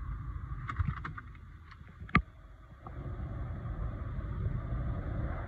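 Automatic car wash heard from inside the car: a steady low rumble with water and foam washing over the windscreen. There are a few light ticks about a second in and one sharp click just after two seconds. From about three seconds in the wash noise grows louder.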